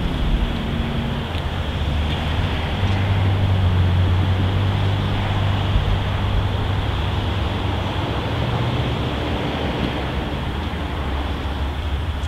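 Low, steady drone of an approaching Amtrak P42DC diesel locomotive still far down the line, under a haze of wind noise.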